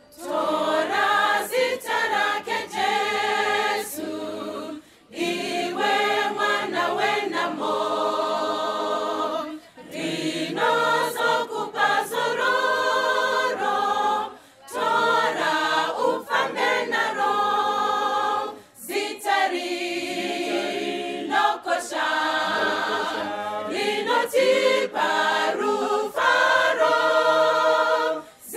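Choir singing a gospel hymn, largely unaccompanied, in phrases of a few seconds separated by brief pauses.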